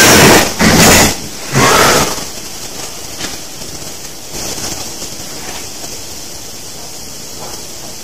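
Three loud, harsh noise bursts in the first two seconds, then a steady hiss.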